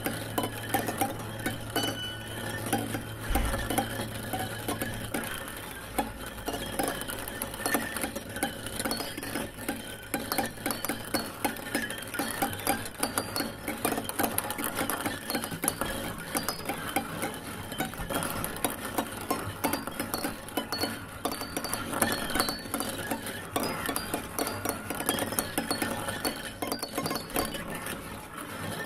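Dense, fast clicking and clinking that runs on without a break, with a steady low hum that stops about five seconds in.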